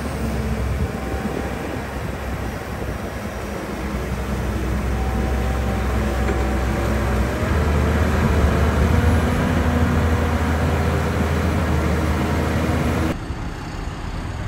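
Heavy earthmoving machinery's diesel engine running steadily, growing louder partway through, then dropping abruptly near the end.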